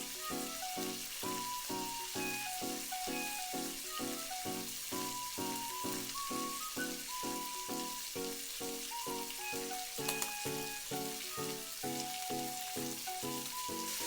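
Egg mixture sizzling in oil in a tamagoyaki pan, a steady hiss, under background music with an even beat of about three a second and a simple melody.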